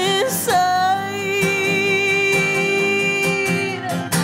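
Acoustic folk song performed live: a woman's voice holds one long, slightly wavering note over steadily strummed acoustic guitar and bowed cello.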